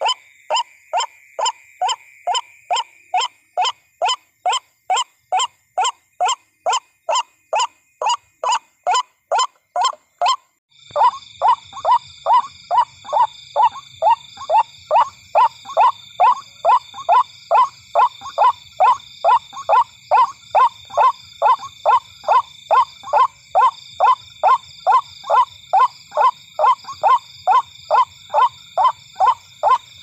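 White-breasted waterhen calling: a short, harsh note repeated monotonously about twice a second without a break. Faint steady high-pitched tones lie behind the calls. About a third of the way in, the background changes abruptly to louder high tones and a low hum, and the calls go on unbroken.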